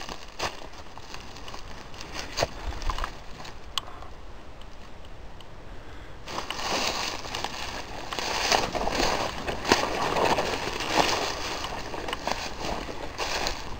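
Footsteps crunching and rustling through dry leaves, twigs and overgrown brush, with a few scattered snaps at first, then after a brief quieter moment about six seconds in, denser and louder continuous crunching as the walker pushes through the undergrowth.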